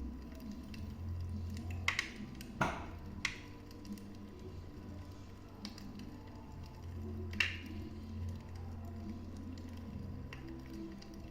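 Wood fire burning in a fireplace: a low steady rumble of flames with scattered sharp crackles and pops, a cluster of them about two to three seconds in and one more past seven seconds.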